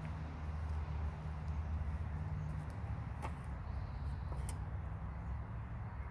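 Hens scratching and shuffling in loose dirt while dust bathing, with two sharp clicks about three and four and a half seconds in, over a steady low rumble.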